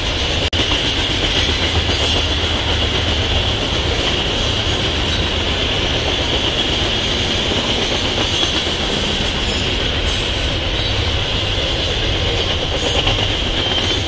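Freight cars rolling past at speed: a steady, continuous rumble of steel wheels on rail, with a constant high hiss over it. The sound drops out briefly about half a second in.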